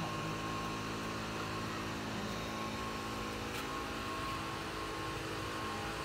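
Steady mechanical hum of a running machine, even in level and holding a few constant tones, with one faint click about three and a half seconds in.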